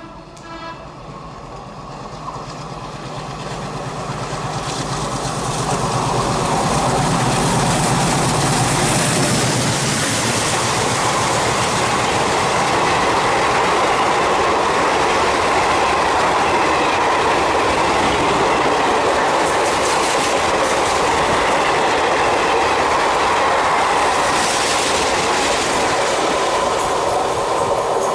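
WDM3A ALCO diesel locomotive hauling an express train at speed: its low engine drone builds over the first few seconds and fades about ten seconds in. After that comes a steady loud rush of coach wheels on the rails with clickety-clack, easing slightly at the end.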